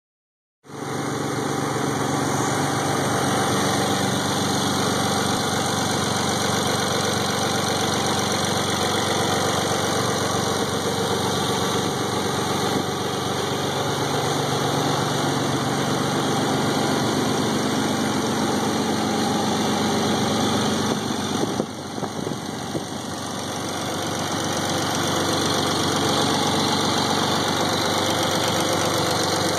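Nissan 300ZX's naturally aspirated 3.0-litre V6 idling steadily with a ticking that the owner fears is a fault. The level dips briefly about 22 seconds in, then comes back.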